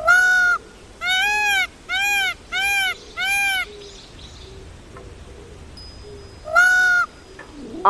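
Peacock calling: six high, loud calls, each rising and then falling in pitch. One comes at the start, four follow in quick succession, and a last one comes near the end.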